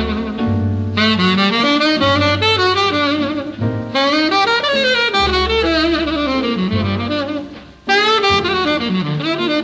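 Background instrumental jazz music: a lead melody over held bass notes, in phrases that change about a second in, at about four seconds, and after a brief dip near the eight-second mark.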